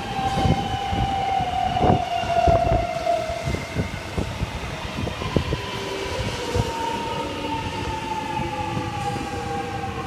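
Melbourne X'Trapolis 100 electric suburban train passing close alongside the platform. Its traction motor whine slowly falls in pitch, with scattered clicks from the wheels on the track.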